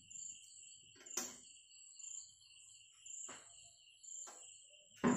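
Faint insects, likely crickets, chirping steadily in a high pulsing trill, with a few soft knocks and taps of things being handled, the sharpest near the end.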